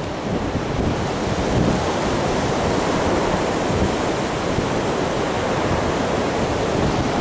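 Hurricane wind rushing steadily with small swells, buffeting the microphone.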